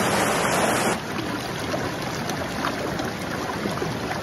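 Small mountain creek rushing over rocks, a steady water noise that drops a little about a second in.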